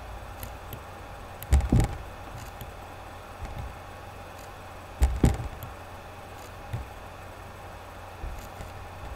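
Two pairs of dull, low thumps, about one and a half seconds in and again about five seconds in, over a steady background hum and hiss.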